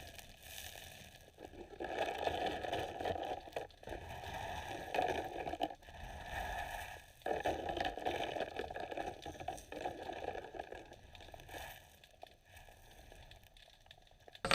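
Muffled underwater noise through a camera housing: irregular bursts of squishing, scraping and gurgling, each a second or two long, from a diver working the seabed.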